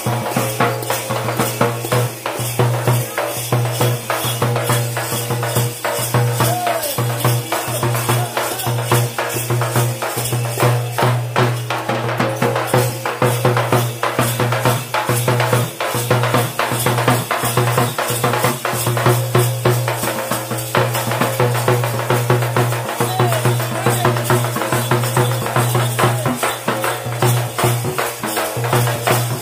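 Teenmaar drums beating a fast, dense, driving rhythm with a jingling edge, over a steady low hum.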